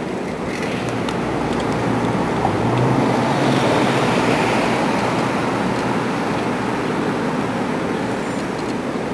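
City street traffic noise heard from a moving bicycle: a steady wash of car engine and tyre noise, swelling slightly as a car passes about three seconds in.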